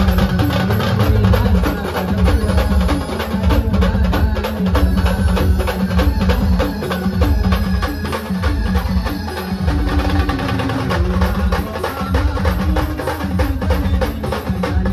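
A Maharashtrian brass band playing a folk song tune over steady, heavy drumming with a strong bass-drum beat.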